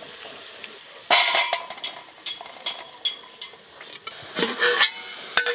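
A metal spatula clinking and scraping against a metal kadai as lightly fried vegetables are tipped out onto a steel plate. It begins about a second in as a run of sharp, ringing metallic clinks, and a denser clatter comes near the end.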